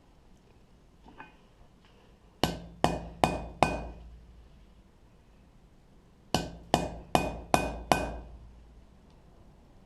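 Hammer blows on a punch driving the pip marks into a small forged die: a run of four quick strikes, then after a pause a run of five, each with a short metallic ring.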